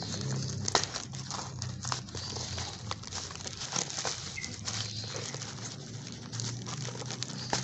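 A cardboard shipping box being pried and torn open by hand, with irregular crinkling, scraping and tearing of the packaging. A low steady hum runs underneath.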